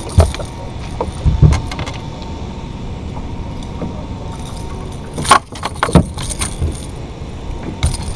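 A handful of sharp knocks and rattling clatters on a bass boat's deck as a small largemouth bass is lifted aboard and unhooked, over steady wind noise on the microphone.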